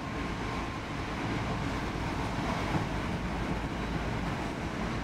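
Steady running noise inside a moving X10 electric commuter train: an even rumble and rush of the carriage under way.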